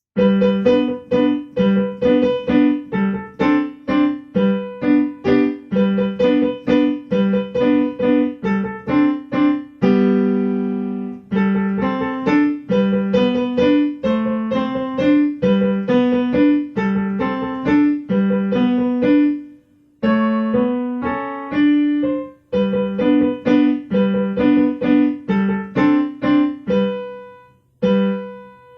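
Piano-voiced keyboard playing an instrumental tune of quick, evenly spaced notes, with a held chord about ten seconds in and short breaks about twenty seconds in and near the end.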